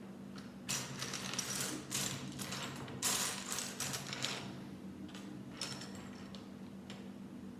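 Plastic Lego parts bags and bricks being handled, rustling and rattling in irregular bursts, over a steady low hum.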